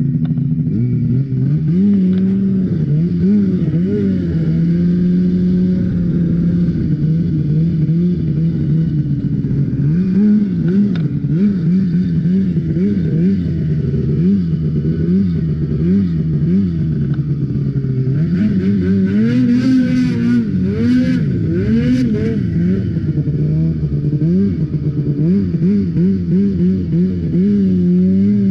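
Ski-Doo race snowmobile's two-stroke engine running loudly, blipped up and down again and again, about once a second at times, as the sled is ridden over snow.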